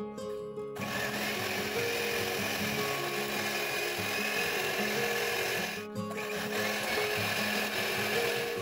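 Electric hand mixer running, its twin beaters churning a half-frozen milk ice-cream base in a steel bowl to whip it smooth. It starts about a second in and cuts out briefly about six seconds in before running on, with background music throughout.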